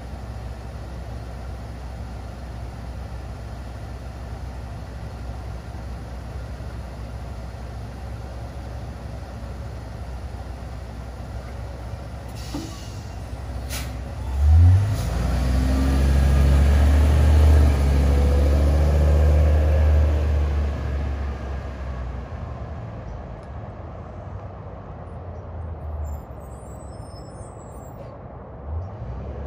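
Yellow school bus idling, then a brief air hiss and a click as its air brakes release. The engine revs up and the bus pulls away, its engine sound growing louder and then fading as it drives off.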